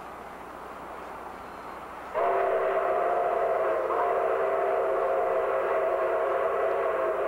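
Steam locomotive's chime whistle blown in one long blast of about five seconds: a chord of several steady notes that starts abruptly about two seconds in, over a steady rumbling noise from the train.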